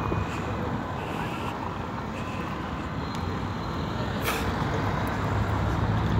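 Steady city street noise: a low rumble of traffic, with one brief sharp click about four seconds in.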